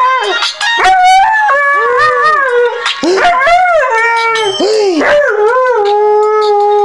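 Siberian Husky howling along to a phone ringtone: a string of rising and falling howls, then one long held howl from about five and a half seconds in.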